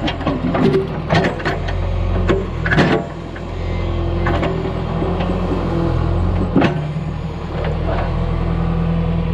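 John Deere 410 backhoe's diesel engine running steadily under work, with several sharp knocks and clanks in the first few seconds and another after about six and a half seconds.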